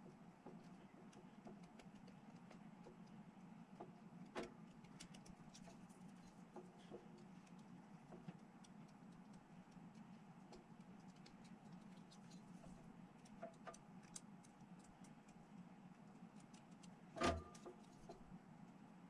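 Faint clicks and taps of plastic miniature parts being handled and pressed together, with one louder sharp tap near the end, over a low steady hum.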